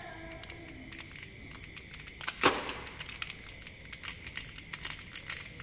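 Plastic lollipop wrapper crinkling and crackling as it is peeled off the candy, with one louder crackle about two and a half seconds in.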